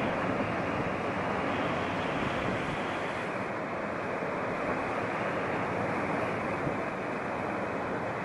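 Sea waves breaking and washing over the rocks below, a steady rushing, with light wind on the microphone.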